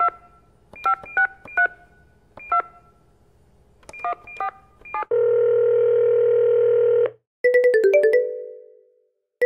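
Push-button telephone keypad being dialled: a string of short touch-tone beeps at uneven intervals. Then a steady ringback tone sounds for about two seconds. After it, a smartphone ringtone plays a quick run of notes that fades away.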